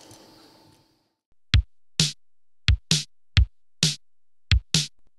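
Faint background sound fades out in the first second. After a brief silence, a programmed drum-machine beat starts, with low kick thumps alternating with sharp snare hits.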